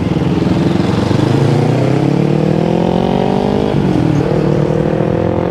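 Motorcycle engine accelerating: its pitch climbs steadily, drops suddenly at a gear change about four seconds in, then climbs again.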